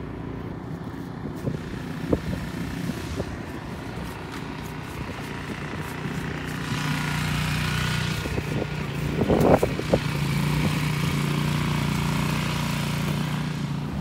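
A motor vehicle's engine running steadily off-screen, growing louder about halfway through, with a single thump about nine and a half seconds in.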